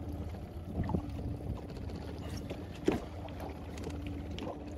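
Small boat at sea under a steady low hum of wind and water, with two knocks from the deck: one about a second in and a louder one near three seconds in, as a large fish is handled and set down.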